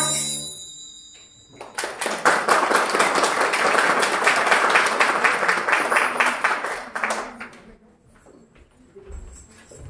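The last note of a children's choir rings out and dies away, then an audience applauds for about five and a half seconds, starting about two seconds in.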